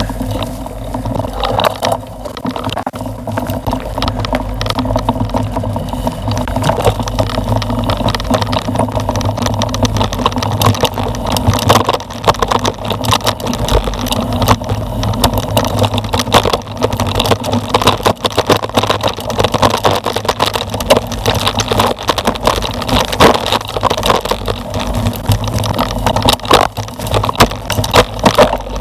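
Mountain bike ridden down a dirt trail covered in dry leaves: tyres rolling over leaves and dirt, and the bike rattling with many small knocks over the bumps, over a steady rumble.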